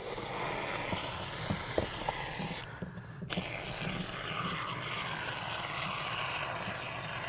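Foam gun spraying low-expansion door and window spray foam into a wall gap: a steady hiss that stops for a moment about two and a half seconds in, then resumes more quietly.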